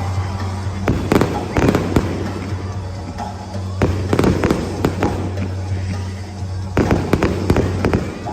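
Aerial fireworks bursting in quick clusters of sharp bangs with crackling tails, in three volleys about three seconds apart.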